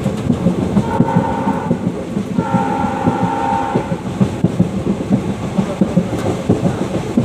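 WDG3A diesel locomotive's ALCO engine chugging in rapid, steady pulses, heard from a coach right behind it. Its horn sounds twice, about a second in and again about two and a half seconds in, the second blast longer.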